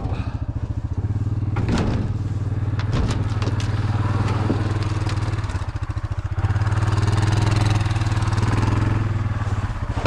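A four-wheeler (ATV) engine runs under way. A few sharp knocks and rattles come in the first half, and the engine gets louder from about six and a half seconds in.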